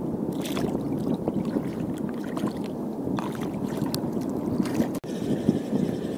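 Seawater washing and gurgling against shore rocks in a steady wash, with scattered small clicks.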